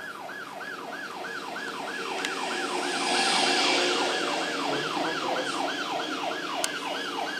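Police siren sound effect in fast yelp mode, its pitch sweeping up and down about four to five times a second without a break. A hissing rush swells and fades around the middle.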